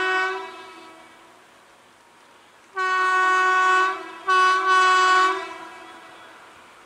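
Indian Railways electric locomotive sounding its horn: the end of one blast fades out at the start, then come two long blasts of about a second each with a short break between them.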